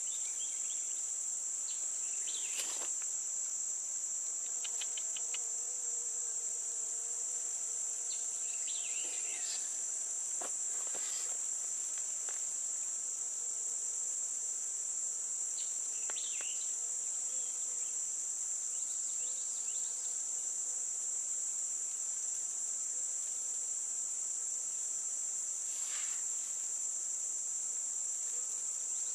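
A steady, high-pitched drone of insects in summer woods, unbroken throughout. A few faint clicks and rustles of the cable snare being handled sound beneath it.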